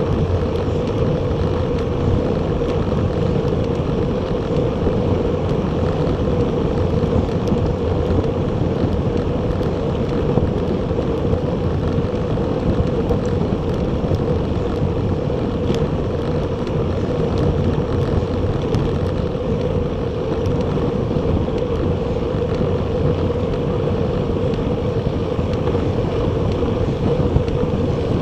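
Steady wind rushing over the microphone with road and tyre noise from a recumbent bicycle rolling at speed, and a constant hum throughout.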